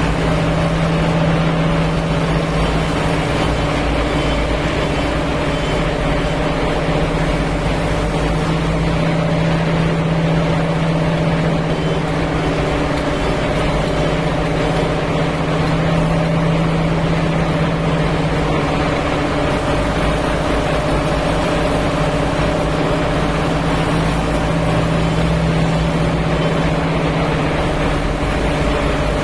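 JCB 3DX backhoe loader's Kirloskar diesel engine running at a steady speed.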